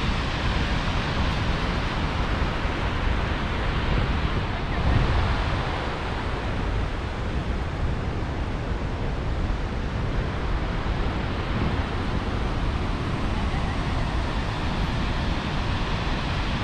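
Steady rush of falling water from Skógafoss, a large waterfall, mixed with wind buffeting the microphone, which swells briefly about five seconds in.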